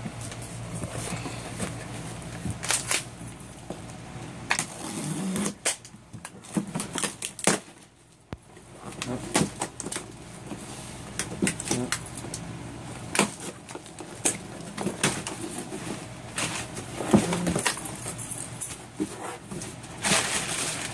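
Cardboard shipping box being handled and opened, with crumpled brown paper packing rustling and crackling in irregular sharp crinkles and knocks. There is a brief lull about eight seconds in.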